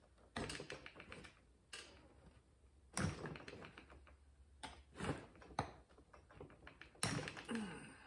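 Small tool clicks and rattles as a long screwdriver works the oiler screws out of a chainsaw's plastic housing. They come in several short bursts of rapid ticking.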